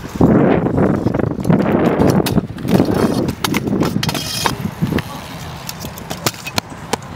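Stunt scooter's wheels rolling on smooth concrete in swells as the rider pumps through the bowl, followed later by sharp clacks of the deck and wheels hitting the concrete as tricks are landed.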